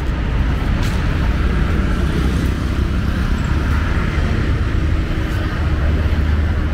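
Steady road-traffic rumble of a busy city street, with a few faint ticks.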